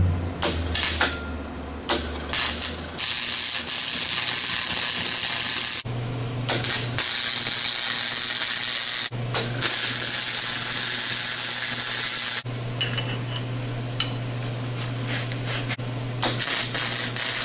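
An angle grinder winding down over the first few seconds, then an arc welder crackling and sizzling in several runs with short pauses, as rebar is welded onto a steel plate. A steady low hum from the welder runs under much of the welding.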